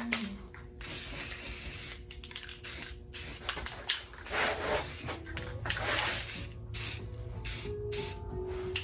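Primer being sprayed onto the Bronco's bare-metal windshield frame, a hiss in a series of short bursts, the first and longest lasting about a second.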